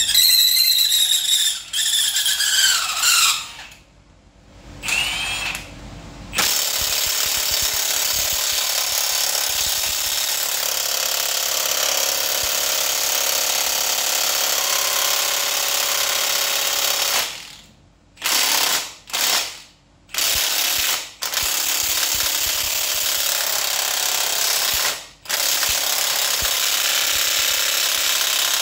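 A power tool working on metal engine parts, running in long continuous stretches and stopping briefly several times in the second half. In the first few seconds there is a squeal that falls in pitch.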